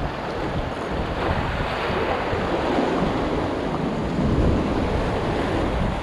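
Rough sea surging and breaking against concrete tetrapods, with strong wind buffeting the microphone in a low, fluttering rumble.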